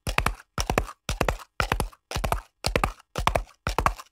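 Horse hoofbeats on hard ground, coming in quick clusters of three or four strikes about two and a half times a second, a galloping rhythm.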